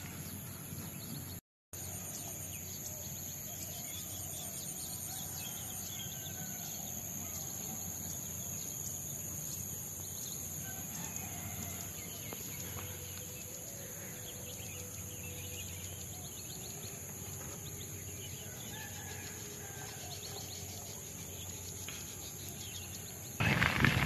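Rural outdoor ambience: a steady high-pitched drone with faint scattered bird calls over a low, even rumble. The sound cuts out completely for a moment about a second and a half in.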